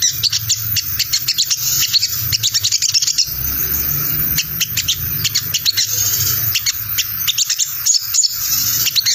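Olive-backed sunbird (sogon) giving its 'ngriwik' call: rapid runs of quick, sharp, high-pitched chattering notes, thinning out briefly about three seconds in, over a steady low hum.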